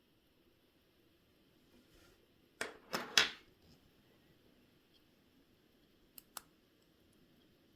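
Small hard objects clicking and knocking on a watchmaker's bench: three sharp clicks in quick succession a little over two and a half seconds in, then two lighter clicks a few seconds later.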